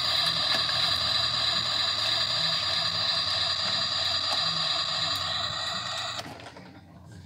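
Toy kitchen stove's electronic cooking sound effect playing through a small speaker as a steady hiss, cut off suddenly about six seconds in as a stove knob is turned.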